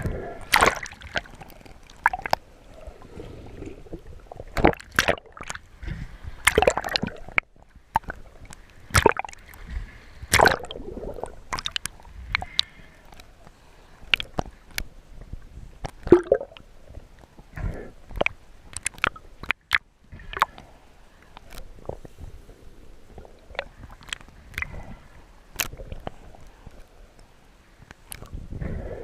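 Water sloshing and gurgling around the camera, broken by many irregular sharp clicks and knocks.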